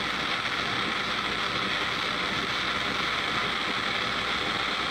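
Handheld gas torch burning with a steady hiss as its flame heats a lump of silver in a plaster of Paris mould to melt it.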